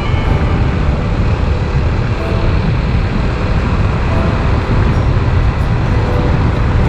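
A vehicle driving along a wet asphalt road: a steady low rumble of engine, tyres and wind, with tyre noise off the wet surface.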